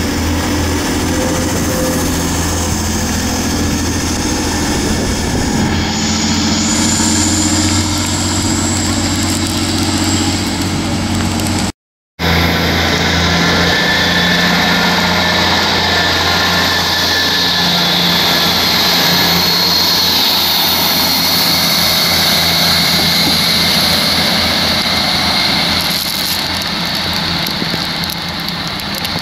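TransPennine Express diesel multiple unit's underfloor diesel engines running as the train pulls away, the engine note rising about six seconds in. After a sudden break about twelve seconds in, a steady rushing noise with a fainter engine hum carries on.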